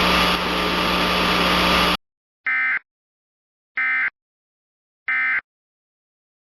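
Steady static hiss with a low hum that cuts off about two seconds in, followed by three short digital data bursts about a second apart: the EAS end-of-message (EOM) SAME tones that close an emergency alert broadcast.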